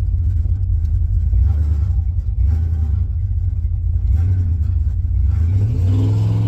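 LS V8 engine of a swapped Chevy pickup running with a steady low rumble, then revving up near the end as the truck accelerates.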